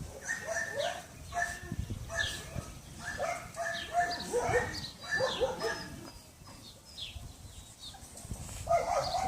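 Dogs barking in short, repeated high-pitched calls, quieter for a couple of seconds near the end before the calls pick up again.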